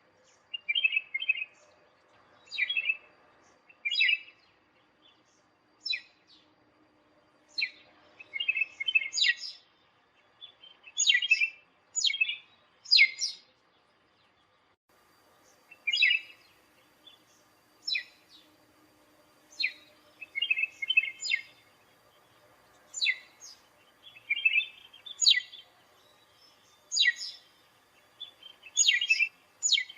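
Black-throated redstart calling: short, sharply falling whistled notes every second or two, alternating with bursts of dry rapid chatter.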